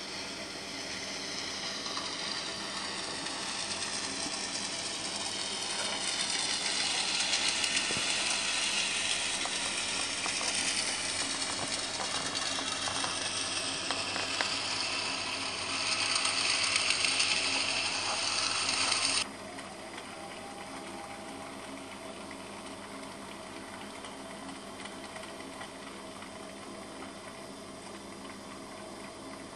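A small geared mechanism whirring and clicking steadily, its pitch drifting slowly, then cutting off abruptly about nineteen seconds in; a quieter steady hum carries on after it.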